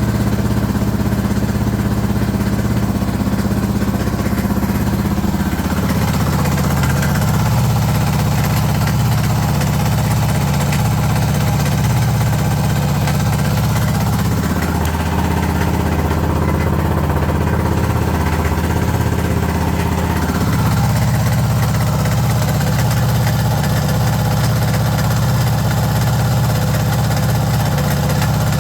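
Suzuki DR650 Dakar's single-cylinder engine running steadily. The note shifts slightly about six seconds in and again around twenty seconds. The owner says the engine is making strange noises that he can't account for.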